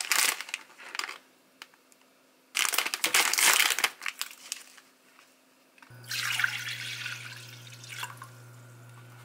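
Plastic instant-ramen pouch (Jangin Ramen) crinkling and rustling in hand, in two bouts. From about six seconds in, water is poured from a measuring cup into a pot over a steady low hum.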